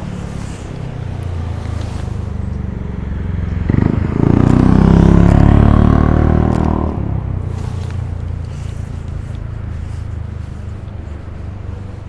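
Road traffic running steadily, with one motor vehicle passing close by from about four to seven seconds in, rising to the loudest sound and then fading away.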